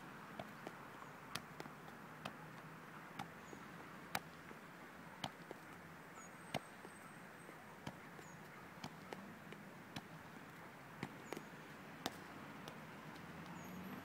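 A football being juggled: sharp, irregular taps of the ball off feet and head, about one or two a second, over faint outdoor background.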